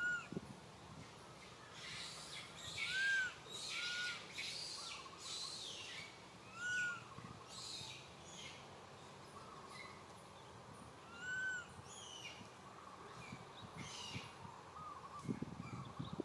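Infant long-tailed macaque crying for its mother: several short, arched, whistle-like coos, a second or more apart, with noisier, higher bursts in between.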